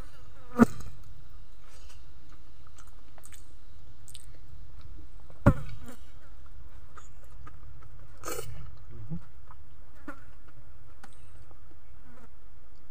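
Hand-eating of boiled vegetables: chewing and small clicks, with two sharp knocks, one about half a second in and one near the middle, over a steady low buzz of flies.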